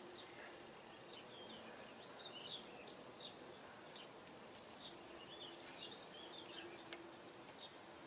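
Faint birds chirping over a steady outdoor background hiss, with two short sharp clicks near the end.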